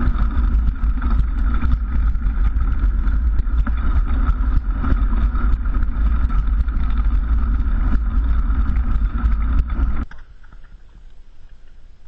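Wind rush and rattling vibration on a bicycle-mounted camera as the bike rides along a trail, a steady loud rumble full of small knocks and clicks. It cuts off suddenly about ten seconds in to a much quieter background.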